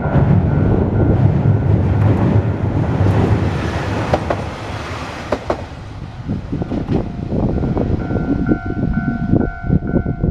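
A diesel railcar running past a level crossing: a heavy low rumble with sharp wheel clacks over rail joints in the first half, while the crossing's electronic warning bell dings about three times a second, drowned by the train at first and clear again from about 8 s in.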